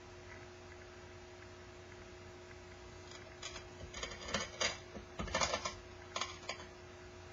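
A cluster of light clicks and knocks from handling a ceramic bowl and a lacquer brush against small dishes on a work tray, bunched in the second half, over a steady low hum.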